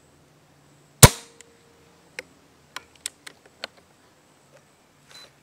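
Gamo Urban .22 PCP air rifle discharging as the trigger's second stage lets off: one sharp, loud crack about a second in with a brief ring after it. A series of lighter metallic clicks follows over the next couple of seconds.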